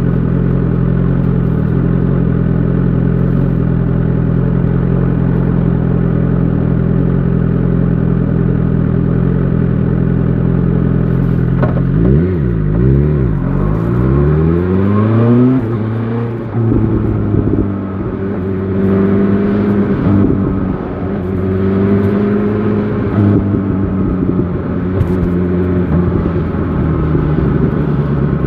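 BMW S1000 XR inline-four motorcycle engine holding steady revs, then about twelve seconds in its pitch dips and climbs repeatedly as it pulls away and shifts up through the gears. After that it runs on at lower, varying revs.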